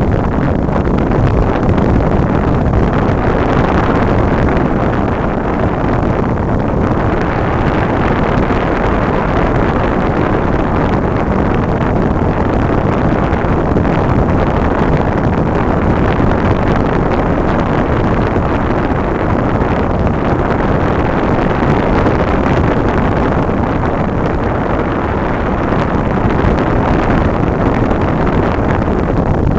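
Steady, loud rush of airflow over the microphone of a camera side-mounted on an electric RC plane in flight, mixed with the drone of the plane's brushless motor and propeller.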